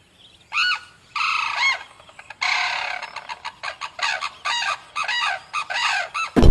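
Chickens calling: a few longer calls, then a quick run of short, repeated clucks from about three seconds in.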